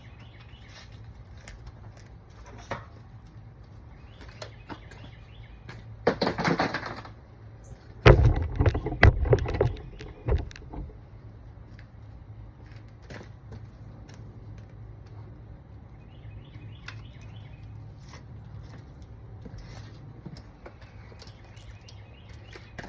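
Hand tools and parts being handled during engine work: scattered clicks, a short rush of noise, then a cluster of sharp metallic knocks and rattles a little past a third of the way in, the loudest part, over a steady low hum. Birds chirp faintly.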